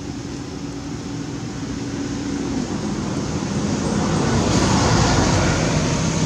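A motor vehicle engine running and growing steadily louder, its low hum dropping in pitch about two and a half seconds in.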